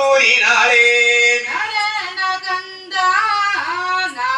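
Sung recitation of a Tamil devotional scripture through a microphone: a voice chanting the text in long, drawn-out melodic phrases with brief breaks between them.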